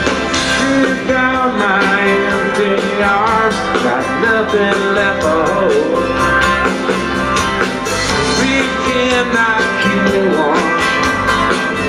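Live country-rock band playing, led by acoustic guitar over electric bass and a steady beat.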